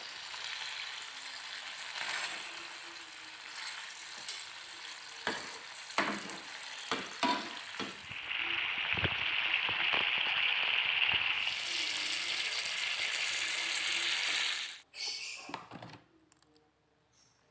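A steady sizzling hiss with scattered crackles and clicks. It grows louder about eight seconds in and cuts off sharply near the end.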